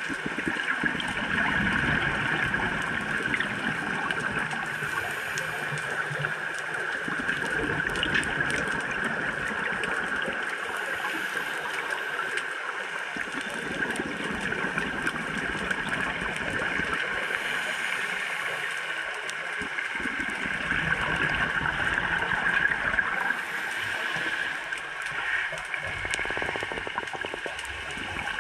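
Scuba diver's breathing through a regulator, heard underwater: a gurgle of exhaled bubbles that comes back every six seconds or so over a constant watery hiss.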